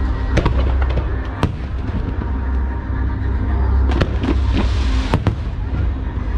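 Aerial fireworks going off in a show: a continuous low rumble of bursts, with sharp cracks several times.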